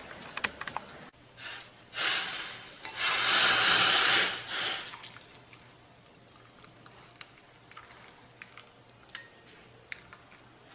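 Hot spiced decoction of dry ginger, coriander and pepper poured from the pan through a strainer. The splashing pour swells to its loudest for a second or so about three seconds in, then trails off into a few drips and light clinks.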